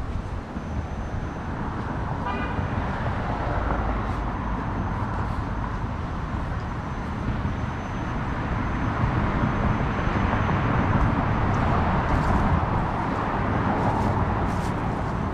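Road traffic going by, a steady rush that swells louder in the second half, with a brief toot about two seconds in.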